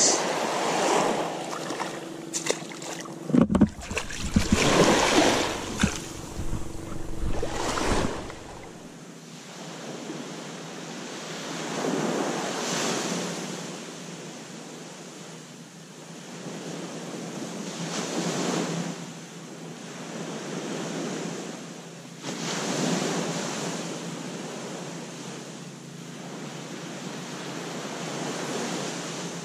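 Small waves breaking and washing up a sandy beach, the wash swelling and fading about every five seconds. Wind buffets the microphone with a low rumble during the first several seconds.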